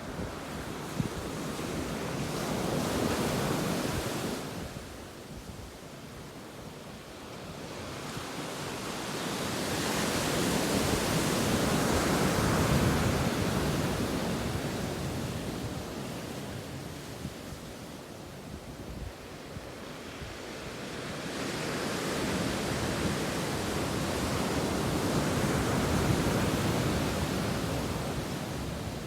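Ocean waves breaking and washing up a beach in slow surges, each swelling over several seconds and then fading, three in all. Wind rumbles on the microphone.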